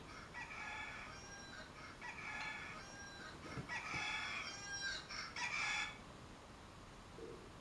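Smartphone timer alarm going off, a high tone repeating in four bursts about a second and a half apart before it is stopped, signalling that the 30-second time is up.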